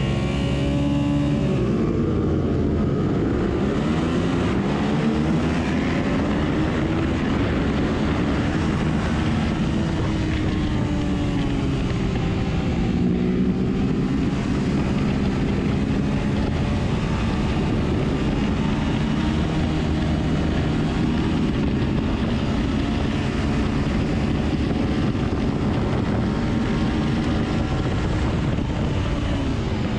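Suzuki SV650's 645 cc V-twin engine under race load, heard on board: the revs are held briefly at the start, then the bike pulls up through the gears, the pitch climbing and dropping again and again.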